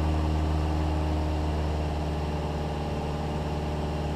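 Cessna 172's piston engine and propeller droning steadily in cruise flight at an even pitch, easing off slightly in loudness partway through.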